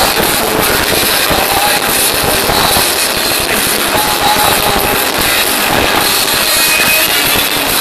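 Loud live band music recorded on a mobile phone's overloaded microphone, heavily distorted into a dense, noisy wash.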